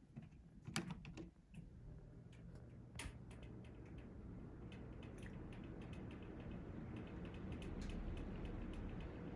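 Minka Aire Viper ceiling fan running: a few sharp clicks about a second in, then a low whir that slowly grows louder, with light rapid ticking over it.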